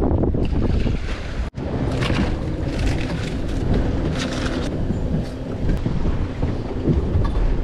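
Wind buffeting the microphone on a boat at sea, over the wash of water against the hull, with a brief break about a second and a half in.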